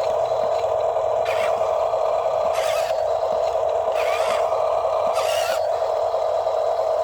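Small electric motor and gearbox of an RC toy construction vehicle whining steadily at one pitch, with short scraping noises every second or so.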